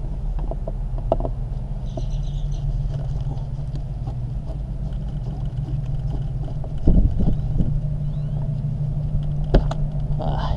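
Steady low rumble, over which a hand screwdriver works at plastic interior trim: a few light clicks near the start, a thump about seven seconds in and another click near the end.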